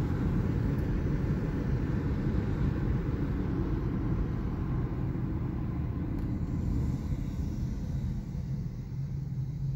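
Steady low road rumble of a car driving, heard from inside the cabin, easing a little in the last couple of seconds.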